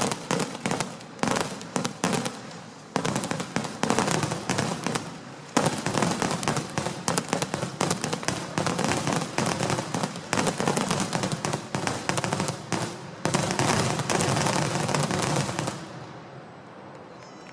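Daytime barrage of aerial fireworks bursting overhead: rapid, overlapping bangs and crackles with a couple of brief lulls, dying away about sixteen seconds in.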